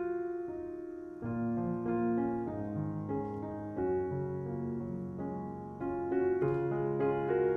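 Background piano music: a gentle melody of single notes and chords, with a new note struck every half second or so.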